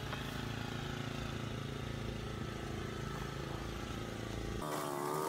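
An engine running steadily at idle, a low even hum. A little before the end it gives way abruptly to a higher, wavering pitched sound.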